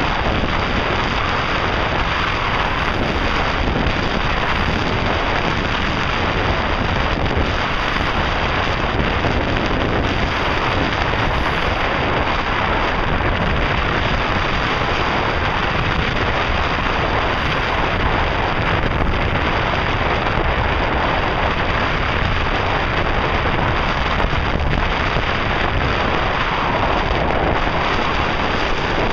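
Steady wind noise buffeting the microphone on the open deck of a moving ferry.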